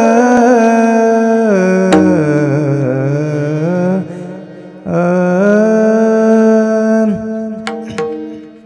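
A man singing long, drawn-out notes of a Warkari kirtan melody in a high voice, without clear words. The pitch sinks and wavers a couple of seconds in, the voice drops away briefly around four seconds, then holds a steady note and fades near the end. There is a sharp click about two seconds in.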